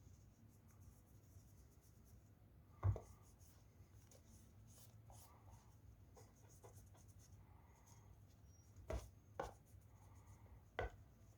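Quiet handling of drill gearbox parts, with faint rubbing and four light knocks or clicks: one about three seconds in, and three close together near the end.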